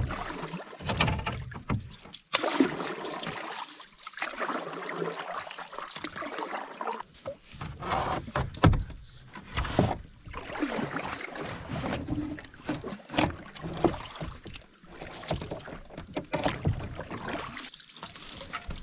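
Irregular knocks, bumps and scraping rustles of gear and hands moving about inside a canoe, with thumps against the hull.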